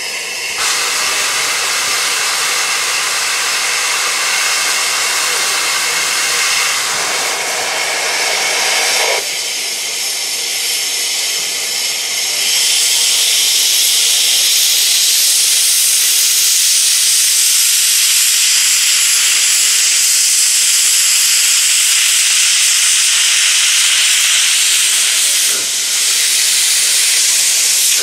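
Steam hissing loudly and steadily from a narrow-gauge steam tank locomotive standing with its train. The hiss grows louder and higher about twelve seconds in.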